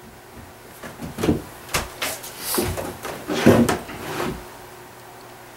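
Short knocks, clunks and scraping of tools and wax being picked up and handled on a workbench as a ski-waxing iron and a block of racing wax are taken up, loudest about three and a half seconds in. A faint steady hum remains after the handling stops.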